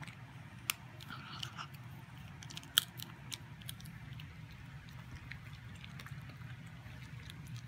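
Miniature Pinscher biting and chewing a hard treat: scattered sharp crunches, the loudest about three seconds in.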